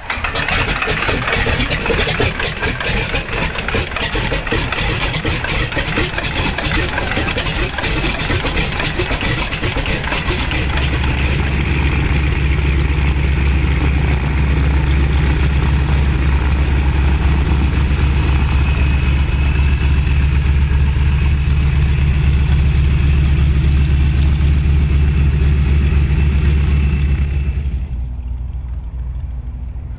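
Boeing Stearman biplane's radial engine starting up. It catches at once and runs rough and crackling for about ten seconds, then settles into a steady, deep, even run. The sound drops away suddenly near the end.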